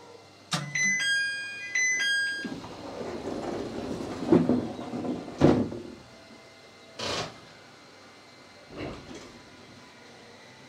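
Door-closing sequence on a JR East 701-series train: an electronic chime of steady tones sounds twice, then the sliding doors run shut with a few thuds. Two short hissing sounds follow.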